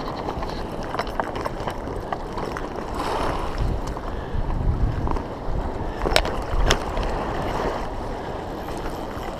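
Fast river current rushing past, with wind gusting on the microphone. Two sharp clicks come about six seconds in.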